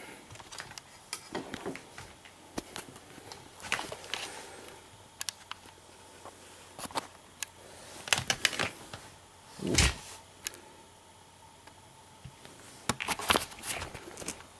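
Handling noise from a camera being taken off its tripod and moved by hand: scattered clicks, taps and rustles, with a louder thump about ten seconds in and a quick run of clicks near the end.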